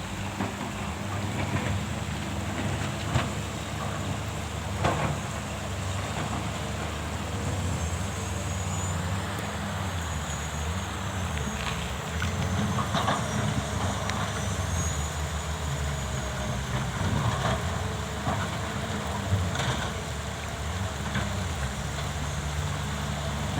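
Diesel engine of a working excavator running steadily, with scattered short knocks.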